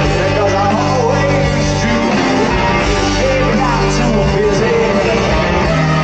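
Live rock band playing, a male lead singer over electric guitars, bass and drums, recorded loud from among the audience.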